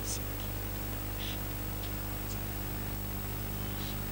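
Steady electrical hum from a microphone and sound system, with a few short, faint hisses of 's' sounds as someone whispers a prayer into the microphone.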